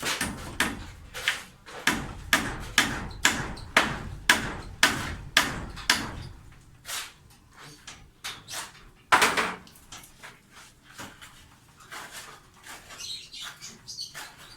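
A run of sharp knocks, about two a second, for around four seconds, then scattered lighter knocks and one loud bang about nine seconds in.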